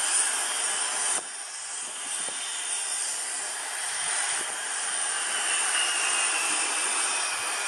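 Boeing 757's jet engines rushing steadily as the airliner touches down and rolls out on a snowy runway. The level drops abruptly about a second in, and a faint whine slowly falls in pitch over the second half.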